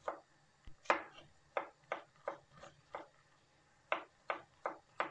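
Kitchen knife slicing a peeled tomato on a wooden cutting board: about a dozen sharp taps of the blade on the board, roughly three a second, with a brief pause in the middle.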